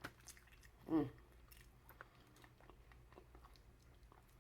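Chewing and small wet clicks of someone eating seafood boil. About a second in there is a brief sound of the voice, the loudest sound here.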